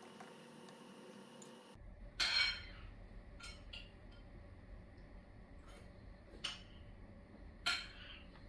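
Light key taps on a laptop keyboard, then a few sharp clicks of the laptop's touchpad; the loudest clicks come about two seconds in and near the end.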